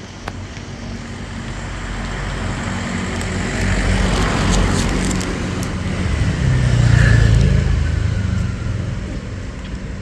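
Street traffic rumbling, with a motor vehicle's engine passing close. It builds to its loudest about seven seconds in, then fades.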